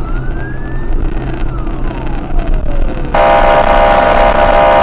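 Police car siren wailing in one slow rise and fall, then a loud, steady blaring horn tone starting about three seconds in, heard from inside the patrol car over the engine and road hum.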